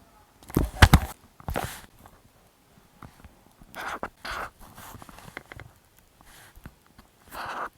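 Stationery being handled for planner decorating: a cluster of sharp clicks and taps about a second in, then a few short scratchy strokes, like a pen or highlighter on paper, spread through the rest.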